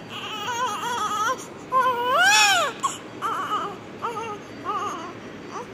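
Newborn baby crying just after delivery: a run of wavering wails, the longest and loudest rising then falling about two seconds in, followed by shorter, choppy cries.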